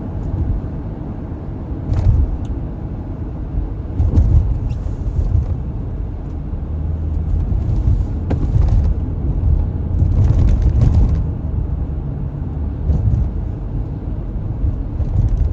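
Road noise inside a moving car on a wet, snowy road: a steady low rumble, with several brief hissing swells along the way.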